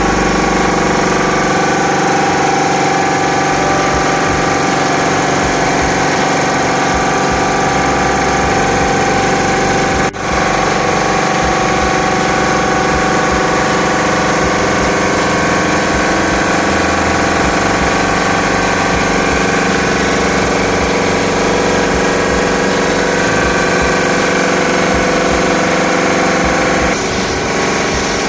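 Air compressor running steadily, with a short break about ten seconds in.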